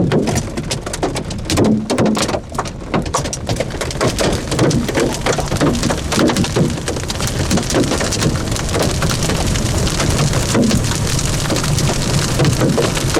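Large hailstones, 4–5 cm across, hitting a car's roof and windows, heard from inside the car: loud, irregular hard strikes that thicken into a continuous clatter after about four seconds.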